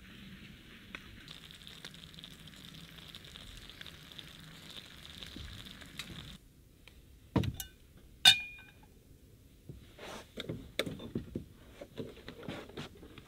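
Meat and potatoes sizzling in a frying pan over a small wood-burning camp stove, a steady hiss that stops suddenly about six seconds in. Then come two metal clanks, the second louder and ringing briefly, as a pot goes on the stove, followed by a plastic bag crinkling.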